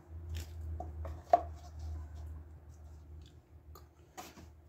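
Plastic funnel and oil bottle being handled at a push mower's oil fill: scattered light clicks and rustles, with one sharp knock about a second in, over a low steady hum.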